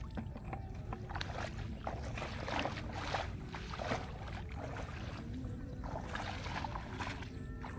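Bare feet splashing through shallow muddy water: a run of wading steps, each with a short slosh of water.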